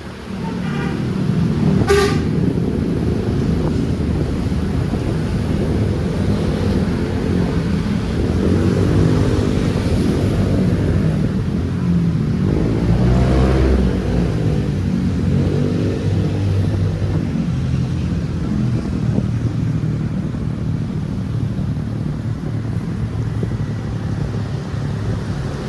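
Heavy road traffic heard from a moving motorcycle: steady engine and road rumble with vehicle horn toots, and pitched engine or horn sounds that swell and bend in pitch through the middle.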